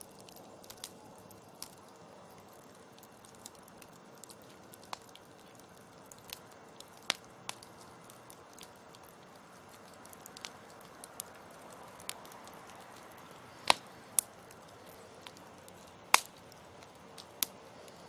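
Wood fire crackling: burning logs give irregular sharp pops and snaps over a soft steady hiss, the loudest snaps coming in the last third.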